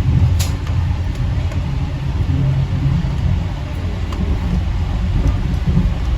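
AirTrain JFK people-mover car running along its guideway: a steady low rumble, with a sharp click about half a second in and a few fainter ticks after.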